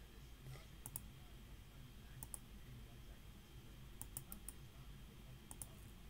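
Computer mouse button clicking a handful of times, some clicks in quick pairs, as points are placed to trace an area outline in takeoff software. A faint steady low room hum lies underneath.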